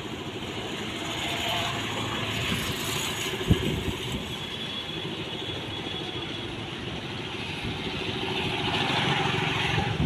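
Road traffic noise: a steady rush that swells twice as vehicles pass, with a single short knock about three and a half seconds in.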